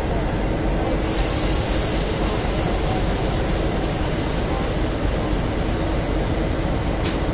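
Stationary diesel locomotives, an N-class main-line unit and a Y-class shunter, idling with a steady engine rumble and hum. A loud high hiss, like escaping air or steam, drops out briefly and comes back about a second in.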